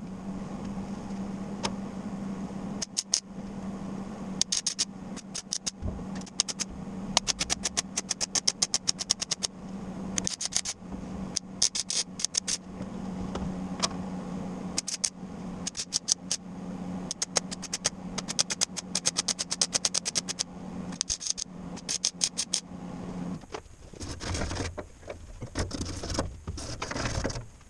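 Arc welding: a steady electrical hum with bursts of sharp crackling clicks, several a second, as short welds are laid. The hum stops about three-quarters of the way through, leaving a few scattered knocks.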